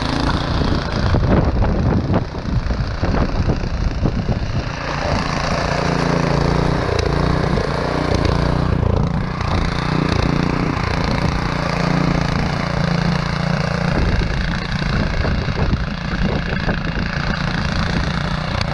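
Small petrol rotavator's single-cylinder engine running at raised revs under load, its rotating tines engaged and churning through soil. A thin steady whine sits above the engine.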